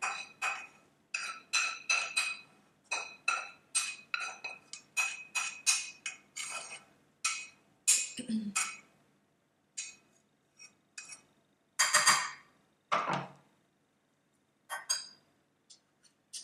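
A spatula scraping and tapping diced red peppers out of a frying pan into a glass bowl. It makes a quick run of clinks and scrapes that thins out after about nine seconds, with two louder scrapes near the twelve- and thirteen-second marks, as the utensils start to mix the bowl.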